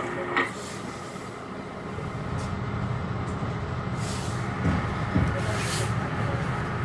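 Metro-North commuter train running along the track, a steady low rumble of wheels and running gear that grows about two seconds in. Two short hisses cut through near the middle.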